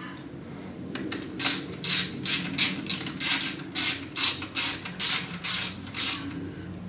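A ratcheting mechanism worked in a quick series of short rasping strokes, about three a second, starting about a second in and stopping shortly before the end, over a steady low background hum.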